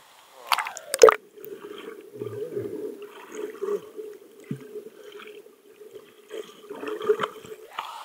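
Pool water gurgling and sloshing, after two sharp knocks about half a second and a second in; the water sound stops shortly before the end.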